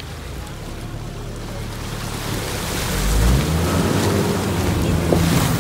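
Car driving through deep floodwater: muddy water churns and splashes along the side of the car over the engine's running note, both growing louder about halfway through as the engine pulls harder.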